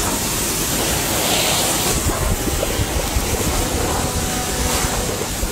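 Cutting torch burning through metal: a loud, steady rushing hiss with low rumble and a constant fine crackle.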